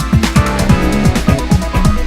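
Electronic background music with a fast, steady dance beat and synth bass.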